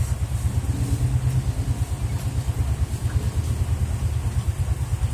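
Steady low rumble with a quick, even flutter in loudness.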